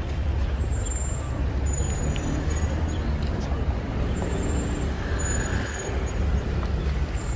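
A steady low motor rumble, like traffic or engines, with short high-pitched chirps now and then.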